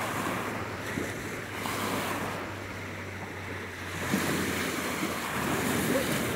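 Small sea waves washing onto the beach, with wind buffeting the microphone. The washing swells louder about two seconds in and again from about four seconds in.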